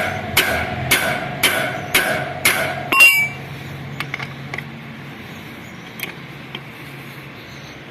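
Hammer blows on a T40 Torx bit driven into a worn, stripped screw head, about two a second with a metallic ring, stopping after about three seconds on a louder clink. A few light metal clicks follow.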